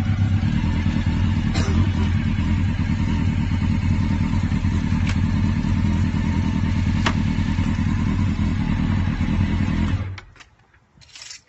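Motorcycle engine idling steadily with a rapid low pulse, shut off about ten seconds in.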